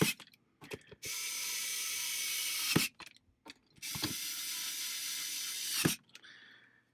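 Small electric screwdriver running twice, about two seconds each time, driving screws into the plastic base of a diffuser. Each run ends with a sharp click.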